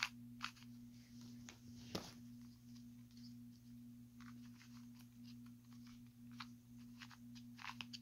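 Faint, scattered plastic clicks of 2x2 puzzle cubes being turned and handled, the sharpest about two seconds in, over a steady low hum.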